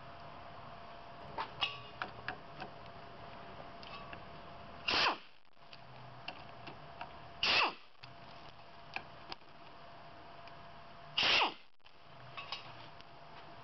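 Light clicks of small metal parts and hand tools being handled, and three loud, short hissing bursts, each falling in pitch, about two to four seconds apart.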